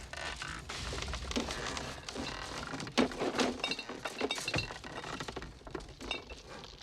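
Film sound effects of crashing and breaking: a run of sharp cracks and knocks over a low rumble, the loudest crash about three seconds in, fading out near the end.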